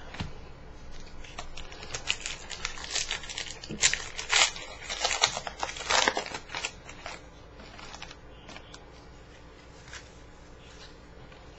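A plastic baseball card pack wrapper being torn open and crumpled, crackling loudest a few seconds in, then fainter handling of the cards.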